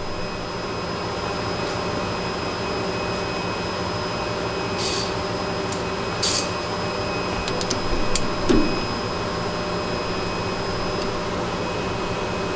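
Steady electrical hum of an idle CNC lathe, with two short electronic beeps about five and six and a half seconds in: the machine's way-oil low-level alarm.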